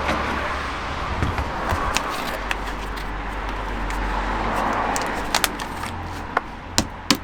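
Road traffic rising and falling as cars go by, with a low hum underneath, and a few short sharp clicks near the end.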